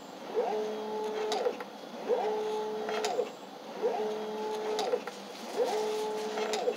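A small electric motor whirring in a repeating cycle: about every second and three-quarters it speeds up, holds a steady whine for most of a second, then winds down, with a sharp click near the end of each cycle. Four cycles are heard.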